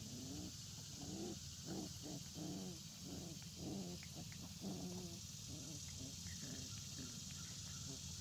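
Six-week-old Old Time Scotch Collie puppies growling and grumbling in play while they wrestle: a run of short calls that rise and fall in pitch, about two a second, thinning out after about five seconds.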